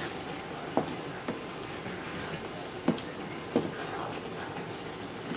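Rice and split peas being stirred in a stainless steel pot with a wooden spoon, with four sharp knocks of the spoon against the pot over a faint steady hiss.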